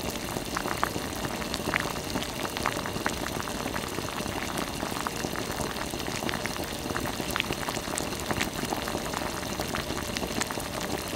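Black sugar syrup boiling in a small iron wok: a steady bubbling with many small pops.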